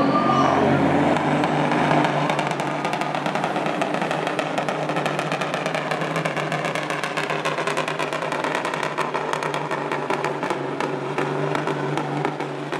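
Diesel engine of a Peterbilt semi truck running hard under full load as it pulls a sled, a steady, loud drone. A rapid crackling joins in about halfway through.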